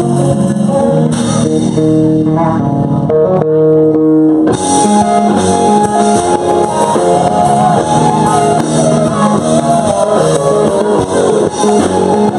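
Live rock band playing loud through a PA: electric guitar and bass over drums. The drums and cymbals drop out for a moment about three seconds in, leaving held guitar and bass notes, and the full band comes back in about four and a half seconds in.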